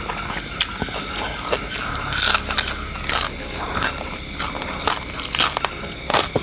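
Someone eating close to the microphone: biting and chewing, with scattered small clicks and a few short crunchy rustles.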